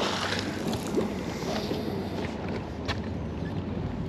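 A magnet splashes into the river at the start, then the rope is pulled in by hand, with small scraping clicks and knocks as it rubs over the boat's side.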